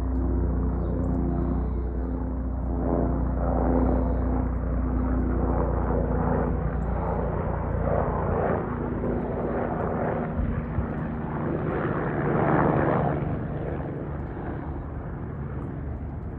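Airbus EC145 twin-turbine helicopter running, its main rotor and turbines giving a steady hum with a deep rumble that swells and eases in waves. It grows fainter over the last few seconds.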